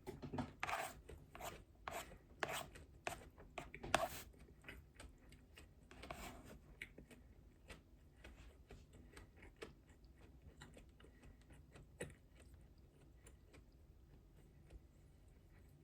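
Mouth chewing crunchy food: a run of crunching chews about two or three a second, loudest in the first six seconds, then fading to faint scattered clicks of chewing.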